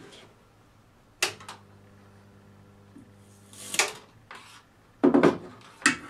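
A switch clicks on and a microwave oven transformer hums steadily for about two and a half seconds, putting high voltage across a dried-up orange. A short crackling hiss comes as the hum stops. Loud knocks and a click follow near the end.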